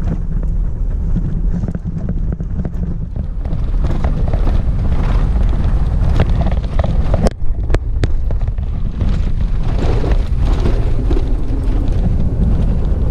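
Mahindra Bolero driving through a shallow rocky stream: a steady low engine rumble with wind on the microphone and water splashing. Two sharp knocks about half a second apart come a little past the middle.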